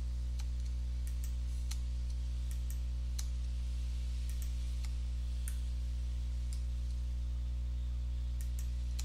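Computer mouse clicking a dozen or so times at irregular intervals as edges are selected one by one, over a steady low electrical hum.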